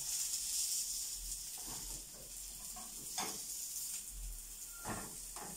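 Oil-brushed hawawshi loaves, bread stuffed with minced meat, sizzling in a nonstick frying pan over a low gas flame. A few brief handling noises about three and five seconds in as a loaf is pressed and turned.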